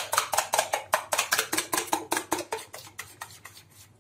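Metal spoon stirring a thick chocolate sauce in a metal saucepan, clinking and scraping against the pan about five times a second, the strokes growing fainter near the end.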